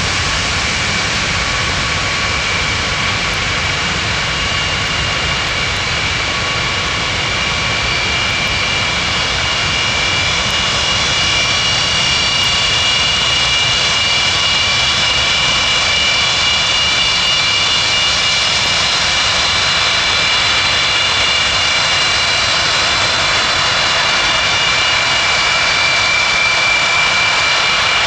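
Aircraft engines running steadily: a continuous rush with several high whining tones held over it, growing a little louder about ten seconds in.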